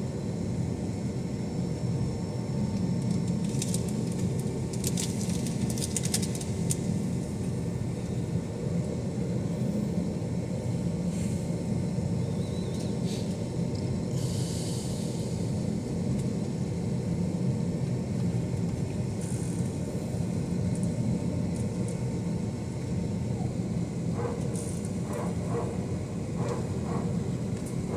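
Airbus A321 passenger cabin while taxiing: the steady low rumble of the jet engines at taxi power, with faint steady hums and a few light ticks and rattles now and then.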